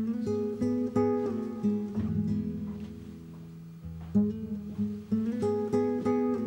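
Background music on acoustic guitar, plucked notes ringing over held chords; it starts abruptly, thins out midway and picks up again about four seconds in.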